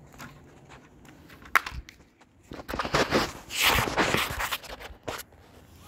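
Close handling noise: irregular rustling and scraping, with a sharp click about a second and a half in and a louder run of scraping in the middle.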